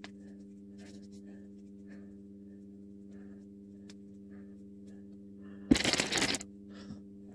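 Steady low electrical hum with a few soft clicks, then, near the end, a loud rustling scrape lasting under a second: handling noise of the recording phone as it is moved.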